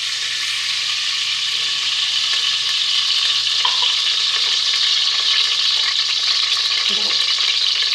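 Olive oil sizzling steadily in a hot cooking pot, a continuous crackling hiss.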